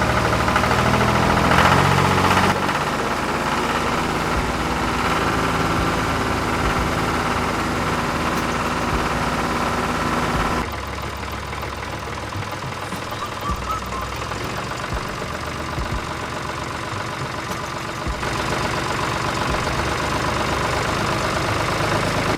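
Tractor engine running steadily, a little louder in the first couple of seconds. About ten seconds in it changes abruptly to a quieter, different engine sound.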